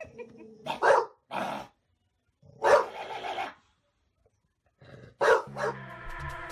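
A dog barking in four separate bursts, the third the loudest and longest. Electronic music starts near the end.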